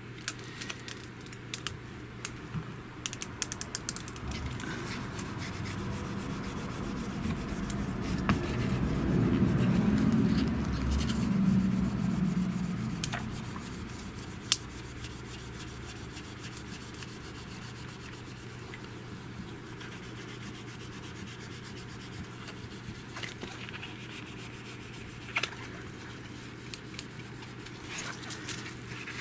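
Plastic applicator card rubbing and scraping over a phone screen protector, pushing air bubbles out from under it, with scattered small clicks and taps from handling. The rubbing is loudest for several seconds in the first half.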